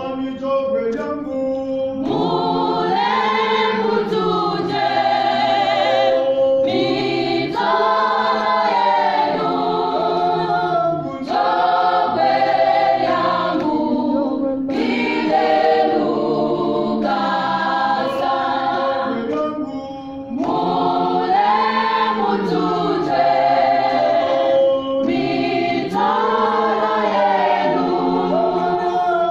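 A choir singing a gospel hymn in parts, unaccompanied, in long phrases with brief breaths between them.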